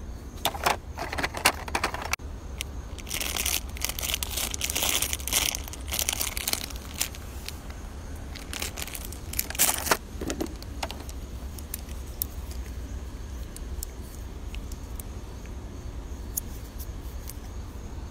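Clear plastic packaging wrap crinkling and rustling as it is handled, loudest in the first several seconds, with scattered clicks and taps from the plastic tray and parts. Quieter handling with faint ticks in the second half.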